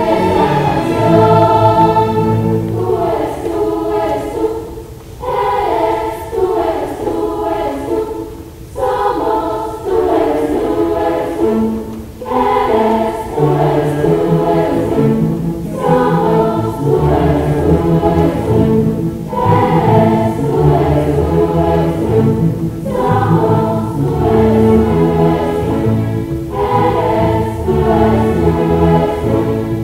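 Children's choir singing in Spanish, accompanied by a string orchestra. The low strings grow stronger about halfway through.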